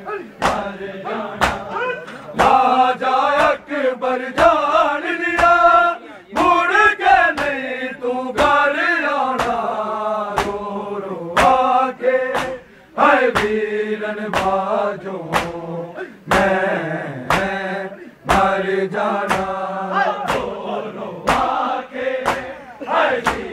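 Male voices chanting a Punjabi noha lament in unison over a steady rhythm of sharp slaps: matam, hands striking bare chests in time with the chant.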